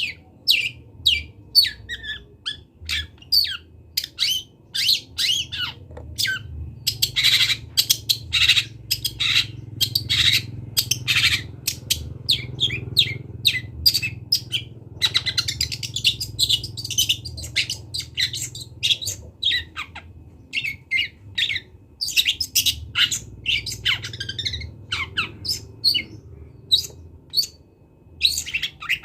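Long-tailed shrike (cendet) singing a long, varied song of rapid chips, chatters and harsh squawky notes, full of phrases copied from other birds, over a faint low hum.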